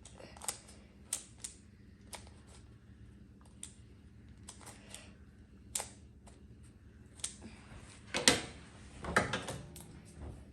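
Plastic speed cubes being turned and handled: irregular sharp clicks of the pieces, with a louder flurry of clicks and rattling about eight seconds in.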